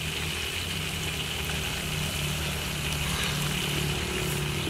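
Pieces of giant trevally frying in oil in a wok over a wood fire, a steady sizzle, with a low steady hum underneath.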